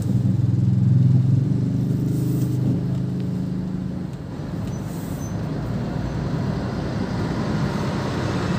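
Large diesel engine of a tour bus running close alongside with a low, steady rumble. About four seconds in it fades into more even traffic and road noise.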